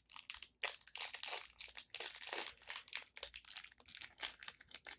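Deadbolt's retail packaging being opened by hand, with irregular crinkling and tearing throughout.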